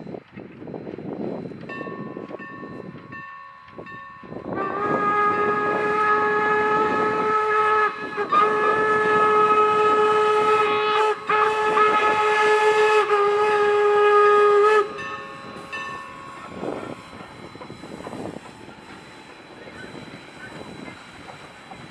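Steam locomotive whistle from a double-headed pair of Strasburg Rail Road steam engines, blown as four loud, steady blasts with brief breaks between them, sounded for a road grade crossing. A fainter, higher whistle sounds briefly just before, and the engines' exhaust chuffing runs underneath before and after the blasts.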